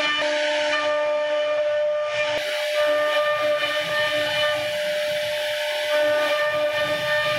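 CNC router spindle whining at a steady high pitch while its bit carves a wooden door panel, with a hiss of cutting over the whine.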